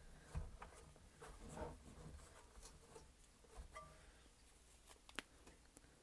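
Faint rubbing and handling noises of a cloth rag wiping excess vinegar off a Roomba's battery contacts, with a few light knocks and a sharp click about five seconds in.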